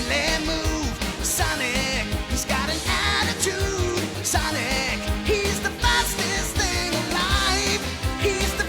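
Upbeat rock theme music with a steady drum beat and bass under a wavering lead melody.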